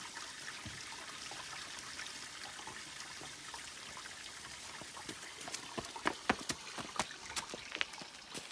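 Grey water from a travel trailer's grey tank draining through a corrugated sewer hose into a dump-station inlet: a steady trickling rush, with scattered sharp ticks from about five seconds in.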